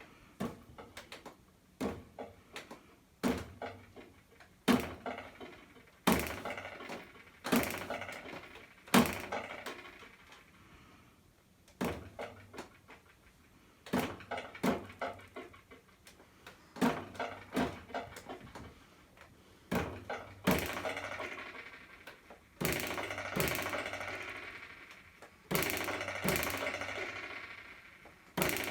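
Ruler knocked and slapped against a hard surface in a loose beat pattern: a run of sharp knocks, some in quick clusters, with the later hits ringing on for a second or two each.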